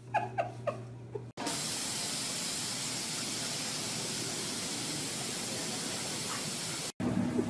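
A few short, high, falling squeaks, then after a sudden cut a loud, steady, even hiss of spraying water that runs for about five seconds and stops abruptly.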